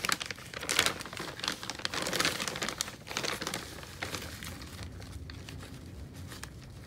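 Plastic potting-soil bag crinkling as a hand and a small cup dig soil out of it, in irregular bursts for the first three or four seconds, then quieter.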